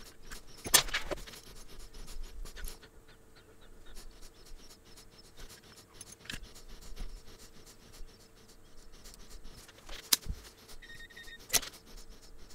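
Quick small clicks and scrapes of hands and tools working a coax cable and PL259 connector, with a few sharper ticks, over a faint steady hum. Near the end comes a brief steady beep from a multimeter on continuity, the sign of a short in the connector.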